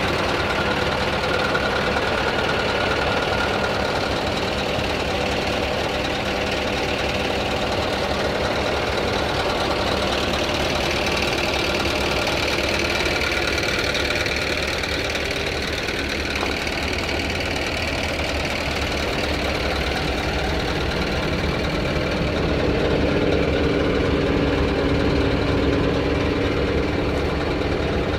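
Scania R 6x4 tipper truck's diesel engine idling steadily, a little louder near the end.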